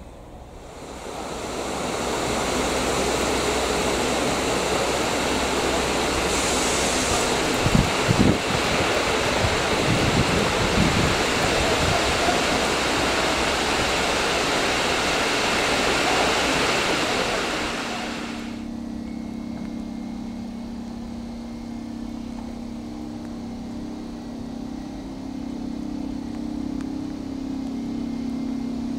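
A loud, steady rushing noise with a few low thumps, which cuts off abruptly about two-thirds of the way in. After that, an electric locomotive standing at the platform hums steadily and more quietly.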